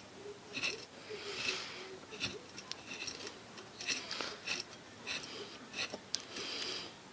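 Small clicks, taps and short scrapes of hand-handled metal ceiling-fan parts being worked apart.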